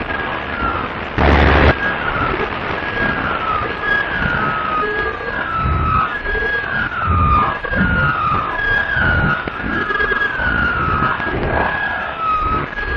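Band-limited radio audio of a siren-like tone that repeats about once a second, each time holding a high pitch and then sliding down, over a rough low rumble. A short loud burst of static-like noise comes about a second in.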